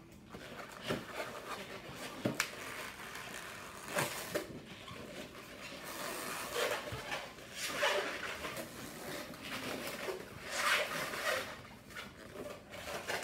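Latex modelling balloons squeaking and rubbing as hands twist them into a balloon animal, with scattered short clicks and handling noise.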